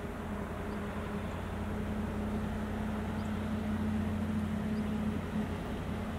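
Steady low drone of a distant engine over a continuous outdoor rumble, growing slightly louder in the middle.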